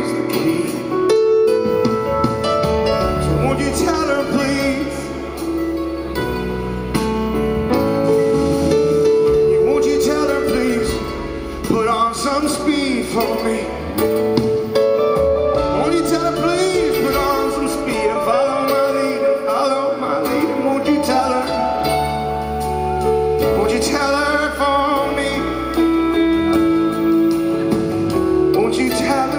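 Live rock band playing in an arena: electric guitars, bass and drums, with male lead singing over them.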